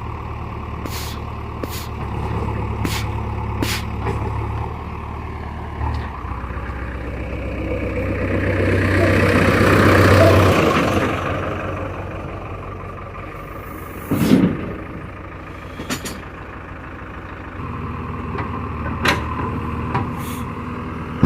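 Heavy diesel engine running steadily, rising to a loud, rushing rev about 8 to 11 seconds in, as if working under load. There are several sharp clicks in the first few seconds and a loud knock about 14 seconds in.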